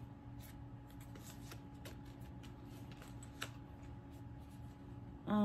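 Faint rustling and light clicks of knit gloves and their paper tag being turned over in the hands, over a low steady hum.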